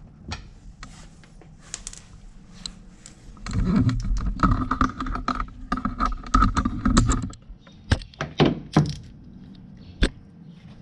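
Hand ratchet clicking as it snugs a fender liner bolt: a run of quick clicks through the middle, then a few separate clicks and knocks.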